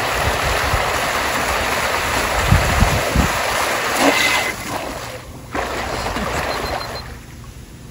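Rushing, splashing water and wind noise on the microphone as a jet-drive paddle craft runs at full speed. The noise is loud for the first four seconds or so, dips sharply, picks up briefly, and dies down near the end.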